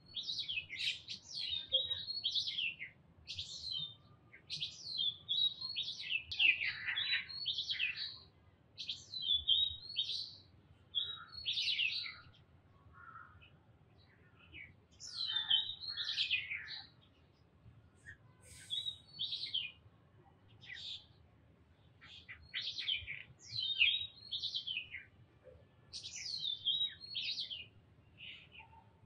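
Songbirds chirping: many short, high calls that sweep down in pitch, coming in quick clusters with brief pauses between them.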